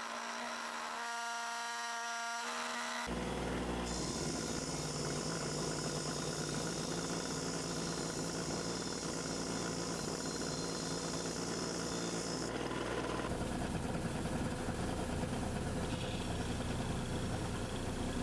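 A power tool's motor running steadily, with a grinding hiss: abrasive rust removal on the old level. It starts about three seconds in.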